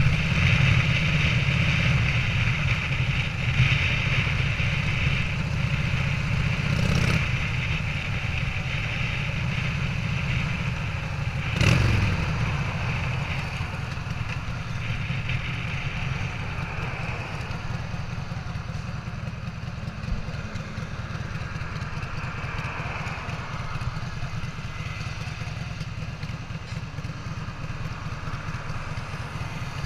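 Harley-Davidson Sportster 883 V-twin, bored out with a 1250 cc kit, running under way on a custom chopper, a steady deep rumble. Two short knocks come about seven and twelve seconds in, and the engine gets quieter after the second.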